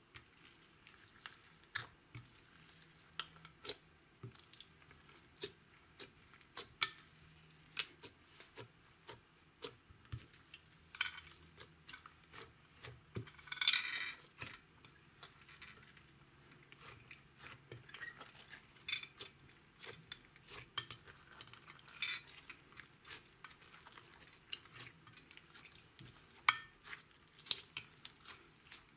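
Sticky clear slime full of foam beads and glitter being stretched and kneaded by hand in a glass dish: irregular wet clicks and pops, with one longer squelch about halfway through.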